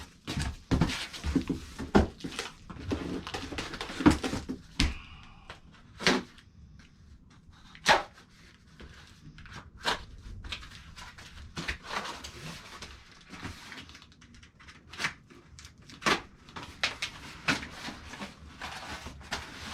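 Cardboard box and packaging being opened and handled, with irregular rustling, scraping and sharp knocks and clicks of parts being set down.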